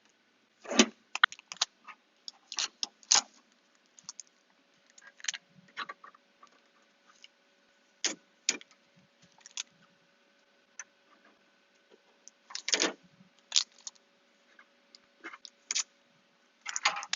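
Blue shipping tape being peeled off a printer's plastic panels and handled: irregular crackles and short tearing sounds with quiet gaps between.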